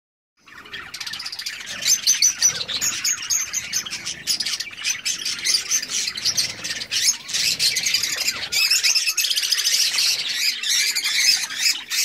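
A flock of budgerigars chattering: a dense, unbroken mix of many overlapping high chirps, warbles and squawks.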